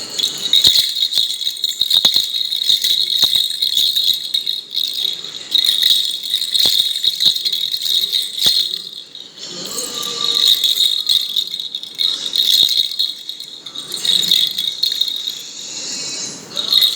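A baby's rattle toy being shaken in bouts, a bright jingling rattle with two short pauses.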